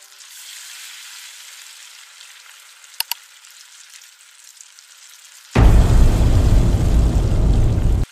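Pomfret fish frying in hot oil: a faint sizzle with two sharp clicks about three seconds in. About five and a half seconds in, it turns much louder and fuller and then cuts off abruptly near the end.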